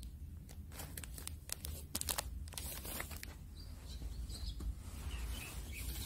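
Clear plastic film wrapped around a bale of used rags, crackling under a hand for the first three seconds. Then small birds chirping faintly, over a steady low rumble.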